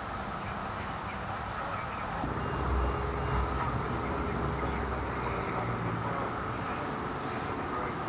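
Steady freeway traffic noise. From about two seconds in it gives way to the deeper, steady rumble of an idling fire engine's diesel engine, with a few short, high beeps near the start of that rumble.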